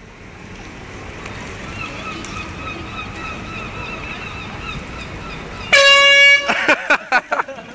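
Hand-held air horn blasting once, about six seconds in: a loud, single-pitched blare lasting under a second, followed by short shouts.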